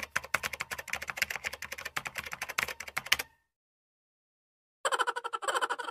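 Typing sound effect: rapid keyboard clicks for about three seconds, cutting off to dead silence. About a second and a half later a second fast run of clicks starts, this one with a tone running under it.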